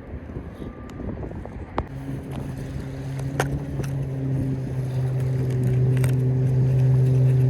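A motorboat engine running at a steady pitch, coming in about two seconds in and growing steadily louder, with a few sharp clicks over it.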